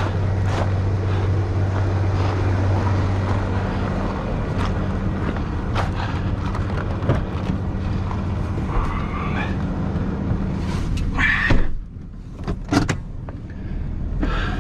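Vehicle engine running steadily, with scattered clicks and knocks over it. About eleven and a half seconds in there is a loud knock, then the engine sound drops away.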